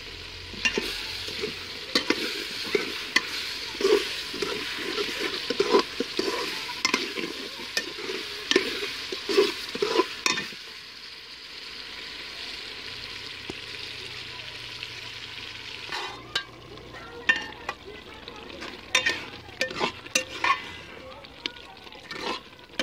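Steel ladle stirring and scraping potato and eggplant pieces frying in an aluminium pot, with a steady sizzle and repeated clinks against the pot. The stirring pauses for a few seconds around the middle, then the clinks come back.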